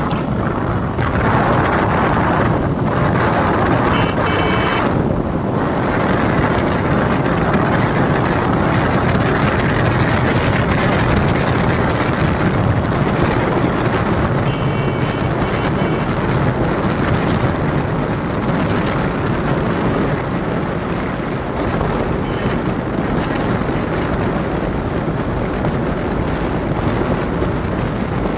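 Steady rush of wind and road noise on the microphone of a motorcycle riding along, with the engine's sound buried in it.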